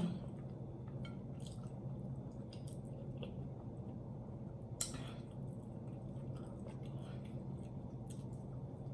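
Close-miked chewing and wet, sticky mouth and finger sounds of eating sauce-covered roast chicken, with scattered small clicks over a low steady hum. One sharp click comes nearly five seconds in.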